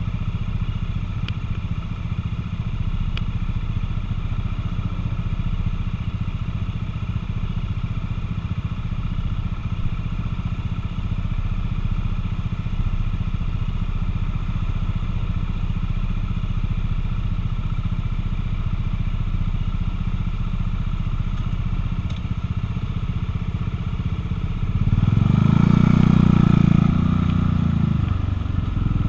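Buell motorcycle engine idling steadily while stopped, then revving up louder for about two seconds as it pulls away, about 25 seconds in.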